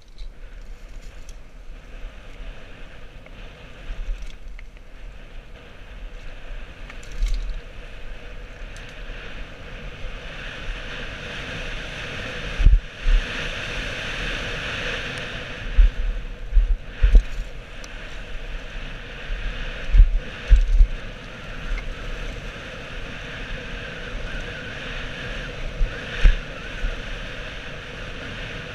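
Wind rushing over a helmet-mounted camera and knobby tyres rolling on a dirt trail as a full-suspension downhill mountain bike descends at speed. It grows louder about a third of the way in, and several sharp thumps come as the bike hits bumps.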